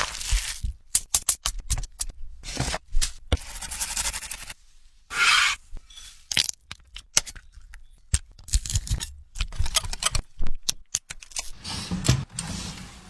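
Food-preparation handling noises: a quick run of sharp clicks and knocks mixed with scraping and tearing sounds, with one longer rasping burst about five seconds in.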